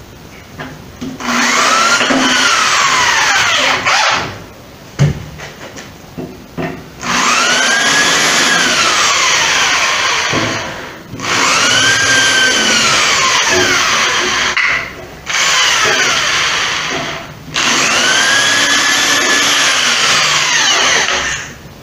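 Corded electric drill working into a white melamine cabinet. It runs in about five bursts of a few seconds each, every burst rising in pitch as the motor spins up and falling as it winds down on release. A sharp knock comes between the first two bursts.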